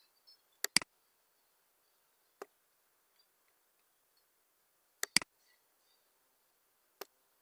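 Computer mouse clicks: a quick double click, a fainter single click, another double click, and a single click near the end.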